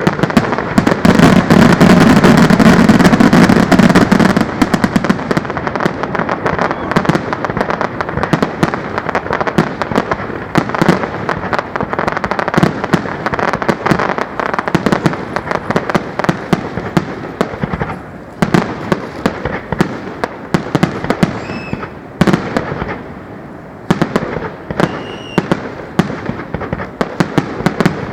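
Fireworks display heard up close: a continuous stream of sharp bangs and crackles, loudest and densest in the first few seconds, then thinning out to scattered reports.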